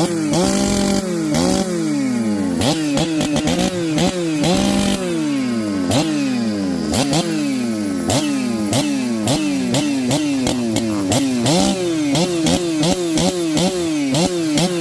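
Ported Stihl MS088 two-stroke chainsaw running hard, its engine pitch swinging up and down over and over, with two brief steady high-speed stretches about half a second in and four and a half seconds in, and sharp clicks throughout.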